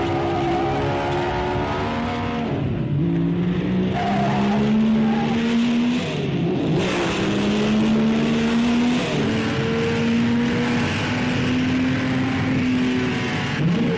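1957 Maserati Formula One car's engine at racing speed, its pitch climbing under acceleration and dropping sharply at gear changes, clearly twice in the first half and in smaller dips later.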